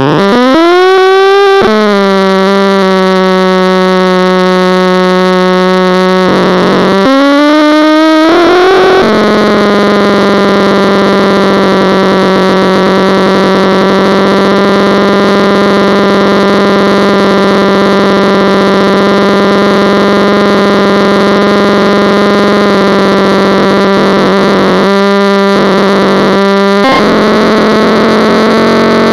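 Loud buzzing tone with many overtones on the audio of a model airplane's 900 MHz FPV video link. It rises in pitch twice in the first nine seconds, then holds steady, and breaks up briefly a few seconds before the end.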